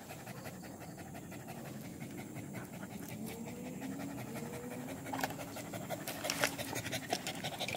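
A village dog panting rapidly near the bowl, with wet clicks of lapping water in the last few seconds.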